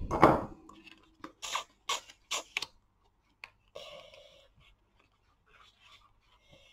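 Cardstock pillow box being folded shut and pressed down by hand, its glued flap stuck in place: a thump at the start, then a run of light paper clicks and crinkles, and a short rustle about four seconds in.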